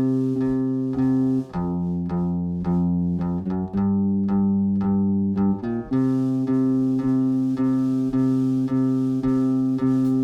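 Instrumental song intro: guitar chords struck about twice a second over a bass, changing chord every two seconds or so, with no singing yet.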